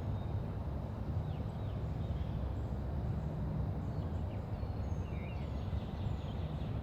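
Quiet residential street ambience: a steady low rumble, like distant traffic, with faint bird chirps scattered through, a few more of them about five seconds in.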